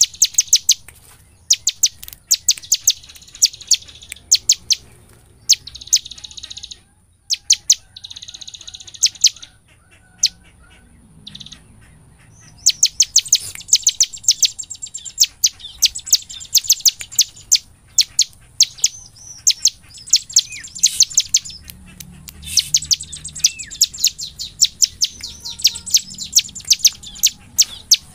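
Bar-winged prinia (ciblek) singing in long, fast runs of sharp, high chirps, several a second, mixed with short buzzy trills, with a brief lull about ten seconds in.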